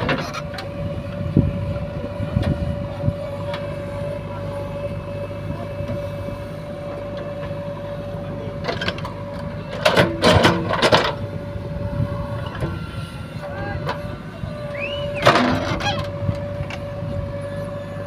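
JCB 3DX backhoe loader's diesel engine running steadily under work, with a steady high hum over it. A cluster of short, loud noises comes about ten seconds in, and another a few seconds later.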